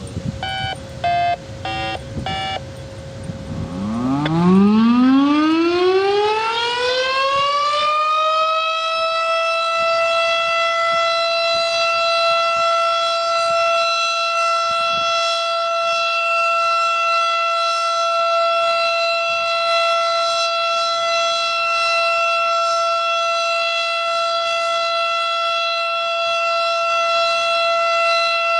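A string of short activation tones from a radio, then a Federal Signal STH-10 outdoor warning siren winding up from a low pitch to a high one over about five seconds and holding one steady, loud tone for its routine test.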